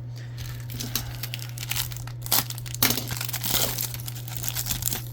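Wrapper of a trading card pack being crinkled and torn open by hand, in a run of irregular crackling rustles that grow denser about halfway through. A steady low hum sits underneath.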